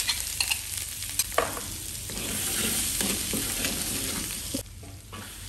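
Spice paste, cooked the night before, being re-fried and sizzling in oil in an aluminium wok. A metal spatula stirs it and clicks and scrapes against the pan. The sizzling drops quieter a little before the end.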